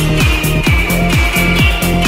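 Electronic dance music with a steady kick-drum beat several times a second and a high synth melody.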